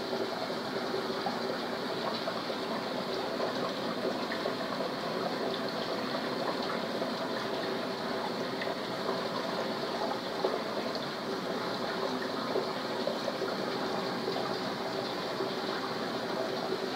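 Steady rush of circulating water with a faint steady hum, from a saltwater reef aquarium's pumps and filtration.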